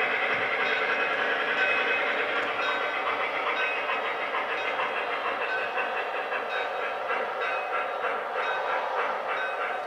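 O-scale model trains running: a steady mechanical running sound as a model Shay steam locomotive hauls log cars past a standing Soo Line GP9 diesel.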